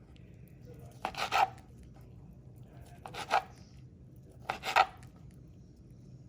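Knife cutting smoked pork rib meat on a cutting board: three short strokes, each about half a second long, a second or two apart.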